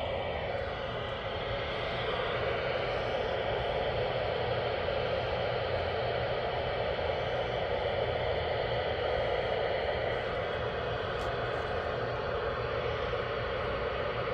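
Steady FM static hiss from a Realistic PRO-43 handheld scanner's speaker, the receiver tuned 20 kHz off the ISS SSTV downlink, so no picture tones come through.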